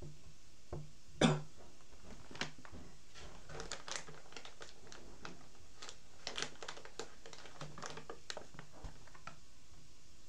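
A man's single short cough about a second in, followed by scattered faint clicks and taps.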